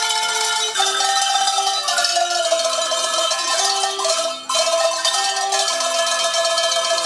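A set of tuned cowbells rung by hand in turn to play a melody, the notes changing about every half second with a brief break about four and a half seconds in.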